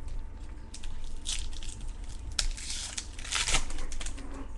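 Trading cards and their pack wrappers being handled: crinkling and scratchy rustling, with louder rustles about a second in and about three and a half seconds in.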